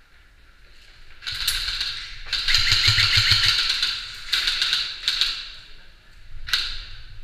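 Airsoft electric rifles firing full-auto bursts, a rapid mechanical rattle of gearbox and shots: a burst about a second in, a longer burst from about two to four seconds in, then several short bursts.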